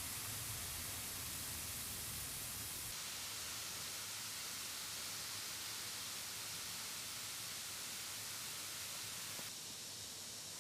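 Bath ball fizzing as it dissolves in water: a steady hiss that shifts abruptly in tone about three seconds in and again near the end.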